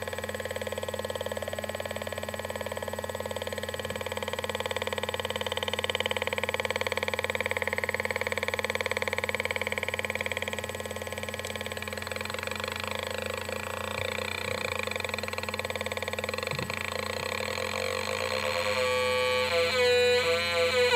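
Homemade Atari Punk Console, a 555-timer square-wave noise synth, playing buzzy electronic tones through a tiny greeting-card speaker. About halfway through its pitch starts sweeping up and down, and near the end it breaks into a fast stepped warble, loudest just before it cuts off suddenly.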